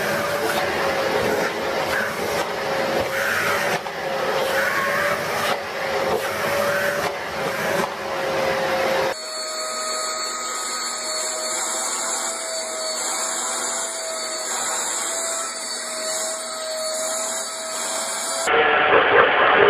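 Household vacuum cleaners running steadily as their nozzles are run over cats' fur, each with a steady motor whine. About nine seconds in, the sound cuts abruptly to a second vacuum with a slightly higher whine. Near the end the sound changes abruptly again.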